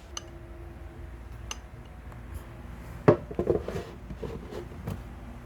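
Light metal clinks and knocks as grow-tent frame hardware is handled: a few separate clicks, then a busier cluster of rattling knocks past the middle.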